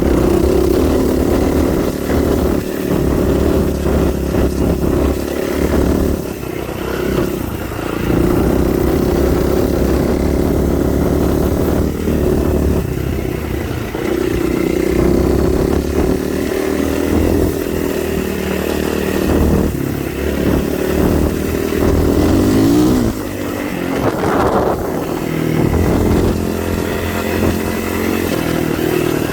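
Vehicle engine running steadily under way, its note easing and picking up again every few seconds, with short rises and falls in pitch near the end.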